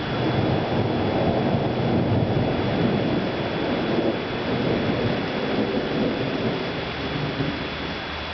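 Rolling thunder, a long low rumble that slowly fades over the last few seconds, over a steady hiss of rain.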